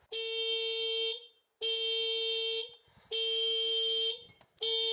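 Piaggio MP3 scooter's alarm buzzer beeping: long steady one-pitch beeps of about a second each, one every second and a half, three full beeps with a fourth starting near the end. The mechanic takes it for an alarm, perhaps to do with the tilt lock.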